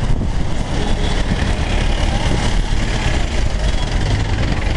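Street traffic: motorcycle and other vehicle engines running close by, a steady low rumble with general street noise.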